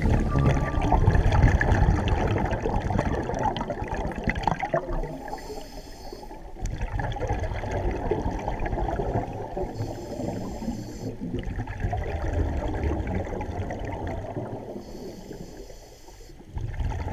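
Underwater sound from a scuba diver's camera: bubbling, crackling water noise from the diver's regulator, with a hissing breath about every five seconds.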